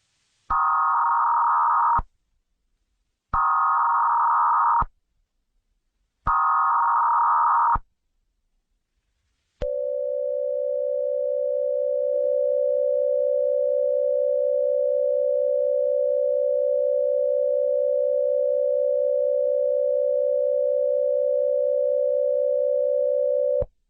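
Emergency Alert System tones: three short electronic data bursts, each about a second and a half long with a pause between, then a long, steady low dual tone lasting about fourteen seconds that cuts off suddenly.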